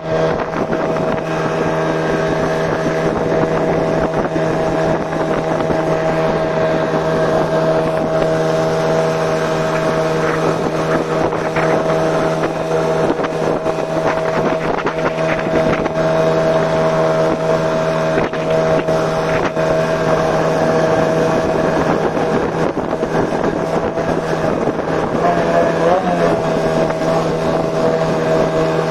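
Yamaha 40 hp outboard with a water-jet drive running steadily under way at a constant speed, with wind on the microphone; the engine note wavers briefly near the end.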